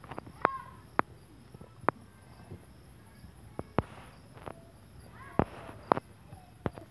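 Crickets trilling steadily in the night, with sharp knocks and clicks at irregular intervals as cattle shift their hooves and graze close by.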